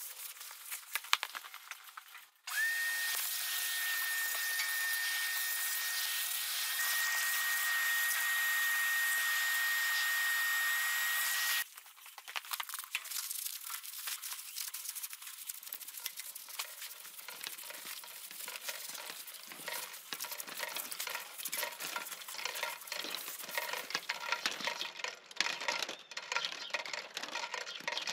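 Aerosol can of cleaner spraying in one long steady hiss with a thin whistle, about nine seconds, cut off sharply. Around it come faint, irregular ticks and patters.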